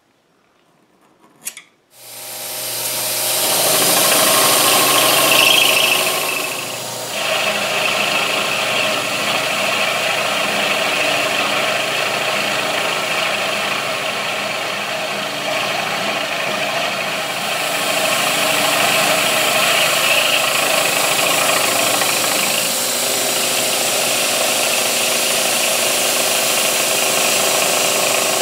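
Vertical milling machine running, its end mill cutting a slot in a steel bar with a steady mechanical drone. The machine starts about two seconds in, just after a couple of sharp clicks, and builds up to full speed over the next two seconds. A high hiss over the drone dies away about six seconds in and comes back near eighteen seconds.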